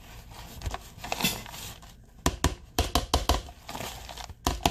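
Crushed cracker crumbs crunching and rustling as chicken is pressed and turned in them in a plastic tub, followed from about two seconds in by a quick run of sharp clicks and knocks of the utensil against the plastic container, with two more near the end.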